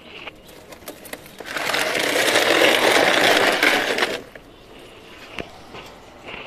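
A cracked plastic bucket full of dried grass and hard soil is dragged across a concrete roof. It makes a loud, rasping scrape that lasts nearly three seconds, followed by a few light knocks as it is set down.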